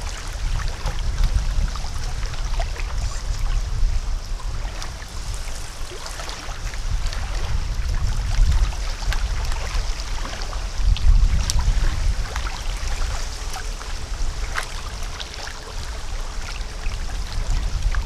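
Lake water lapping at the shore, with scattered small splashes and an uneven low rumble underneath.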